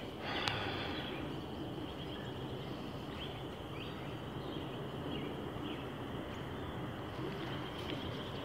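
Woodland ambience: a steady background noise with short, faint bird chirps now and then.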